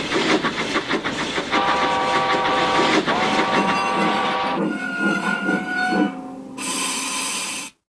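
Toy train set's sound effects: a quick rhythmic chuffing, then two long multi-note train-whistle blasts, then a burst of steam hiss that cuts off suddenly near the end.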